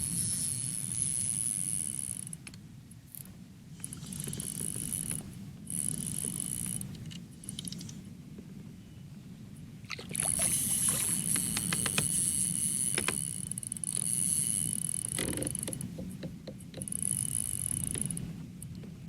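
Pedal drive of an Old Town PDL 120 kayak whirring in spells of a few seconds as it is pedalled and stopped, over a steady low rumble of wind and water, with a few light clicks.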